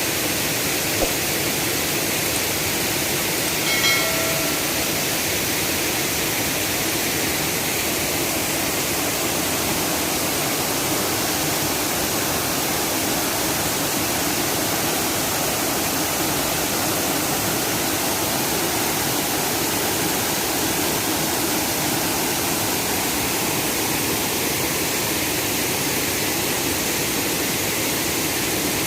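Silvermine Waterfall's steady, unbroken rush of falling water. A brief high tone sounds once about four seconds in.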